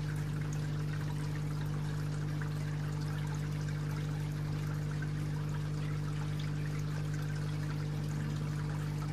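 Water trickling and splashing steadily into a raised garden koi pond, with a steady low hum beneath it.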